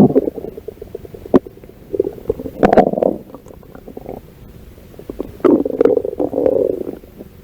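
Stomach growling: gurgling rumbles that come in two spells, about two and a half seconds in and again from about five and a half to nearly seven seconds in, with a short sharp click about a second and a half in.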